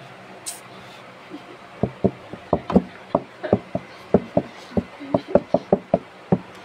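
A quick, uneven run of about sixteen sharp knocks close to the microphone, starting about two seconds in.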